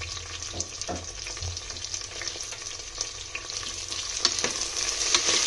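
Sliced green capsicum and onions sizzling in hot oil in a pressure cooker, a steady crackling hiss. In the second half a spoon stirs the vegetables, adding scraping clicks against the pan, and the sizzle gets louder near the end.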